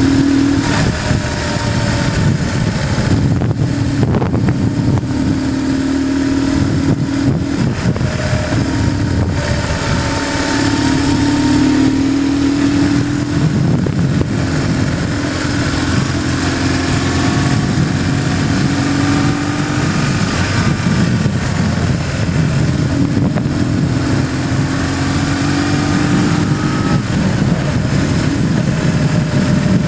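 BMW GS motorcycle engine running on the move, its note rising and dropping several times with the throttle, over a steady rush of wind and road noise.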